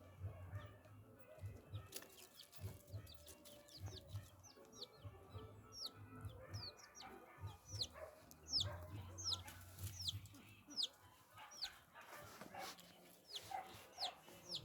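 Birds calling: many short, high chirps that each fall in pitch, repeating about once or twice a second, over soft low pulsing sounds.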